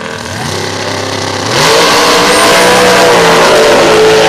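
Two Beetle-bodied drag cars launching off the start line: engine pitch climbs as they rev, then about a second and a half in it gets much louder as they go to full throttle and run down the strip.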